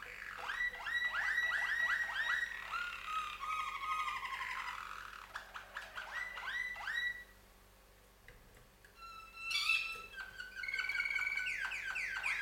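Domestic canaries singing in duet: long runs of rapid repeated notes and rolling trills. The song breaks off for about two seconds just past the middle, then starts again.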